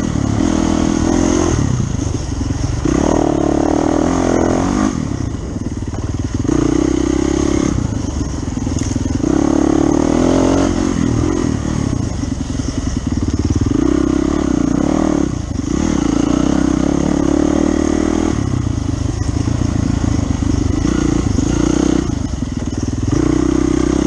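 Dirt bike engine heard from on board, revving up and easing off again every few seconds as the bike is ridden along a rough trail.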